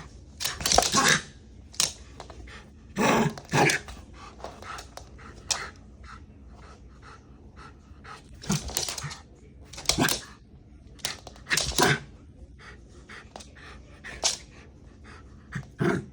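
Shiba Inu dog panting, in short irregular bursts of breath a second or more apart.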